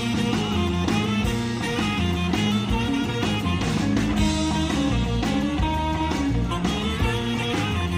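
Live rock band playing a surf-rock instrumental, with electric guitar lines over a driving drum beat and bass.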